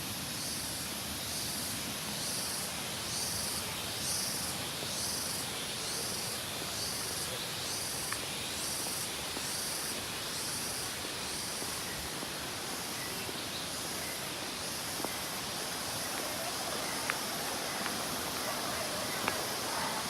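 Steady outdoor hiss. For about the first ten seconds a high-pitched pulsing chirr sits over it, repeating about twice a second, with a few faint clicks.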